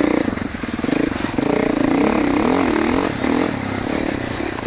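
A 2021 Gas Gas MC450F's single-cylinder four-stroke engine running under way on a dirt trail. Its pitch rises and falls several times as the throttle is worked.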